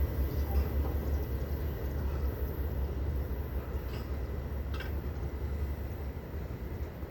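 Low rumble of a departing freight train, slowly fading as it moves away, with a few faint clicks.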